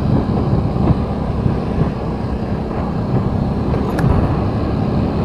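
Vehicle engine and road noise of a ride through city street traffic: a steady, dense rumble, with a brief click about four seconds in.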